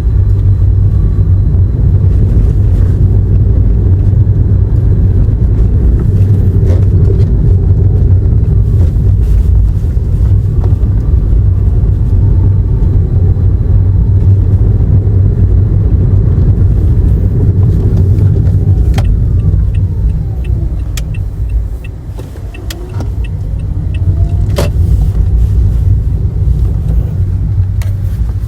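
Toyota Aqua hybrid driving along a road: steady low road and tyre rumble that eases off about two-thirds of the way through and then builds again. There are a couple of sharp clicks, and faint regular ticking near the end.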